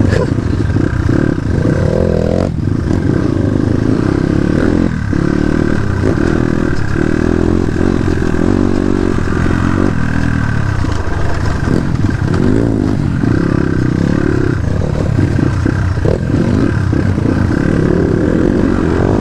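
Crossfire RM250 dirt bike engine running while being ridden, its pitch rising and falling continually with the throttle.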